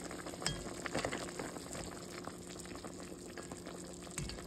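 Chicken necks cooking in butter with peppers and onions, sizzling and bubbling with a steady crackle of many small pops. A steady low hum runs underneath.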